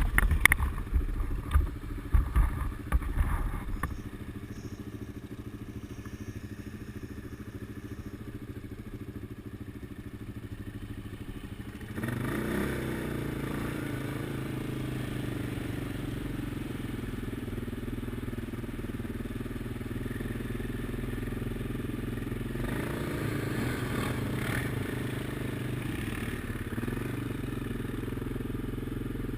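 ATV engine running at a steady speed, with loud irregular knocks and bumps in the first few seconds. About twelve seconds in the engine note gets louder and then holds, with small changes in revs later on.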